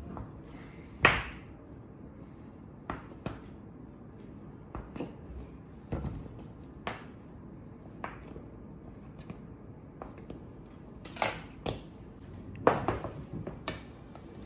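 Chef's knife cutting through a block of cheese and knocking on a cutting board: scattered sharp knocks a second or two apart, with a louder cluster of knocks and clatter near the end.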